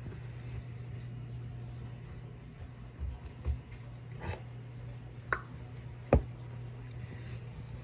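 A cat-toy wand stick tapping and knocking against the stair treads, a few scattered taps with the sharpest about six seconds in, over a steady low hum.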